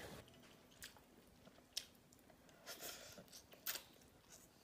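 Faint sounds of a person eating a bowl of rice noodles: soft chewing with a few short, sharp mouth clicks, roughly one a second.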